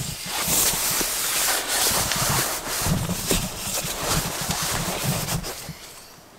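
Rustling and scraping of nylon tent fabric and a sleeping pad as the pad is pushed into the tent and smoothed flat on the floor, with some dull bumps; it dies away about a second before the end.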